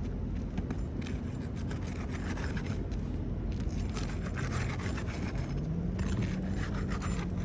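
A shingle repair tool scraping under an asphalt shingle in repeated strokes, breaking the shingle's adhesive seal to free its nails. A steady low hum runs underneath and rises in pitch about five and a half seconds in.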